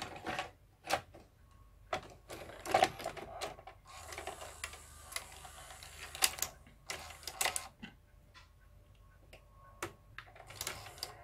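Beta cassette being pushed into a Sony EDV-5000 ED Beta VCR and drawn in by its cassette-loading mechanism: a series of clicks and clunks, with a motor whirring for a few seconds in the middle.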